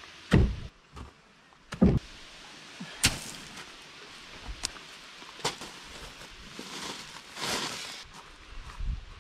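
Rocks being handled on a gravel shore: two heavy thuds in the first couple of seconds, then several sharper knocks and a longer scraping crunch of gravel near the end.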